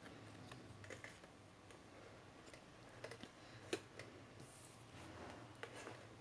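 Faint scattered clicks and light rustling of CD album packaging being handled by hand, with one sharper click a little past the middle.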